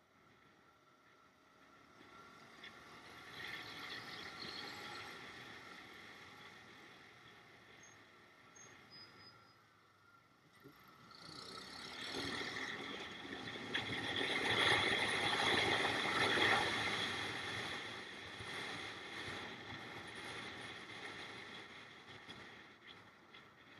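Motor vehicle running, its sound swelling to a peak about halfway through and then easing off.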